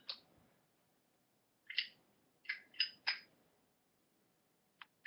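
Brass-cased Zippo lighter being handled: about six short, sharp metallic clicks and clinks spaced out over a few seconds.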